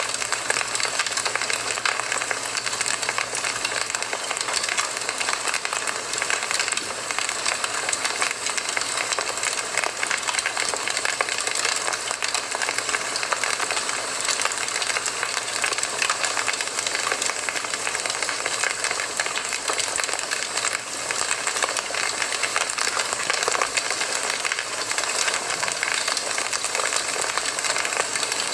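Campfire burning steadily, a dense hiss of fine crackles and small pops.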